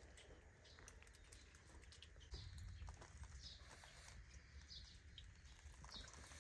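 Near silence: faint outdoor ambience with a few faint bird chirps and scattered small clicks.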